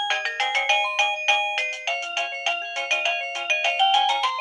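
Coolqiya wireless doorbell receiver playing one of its built-in melody ringtones: a quick run of short, thin electronic chime notes through its small, low-quality speaker.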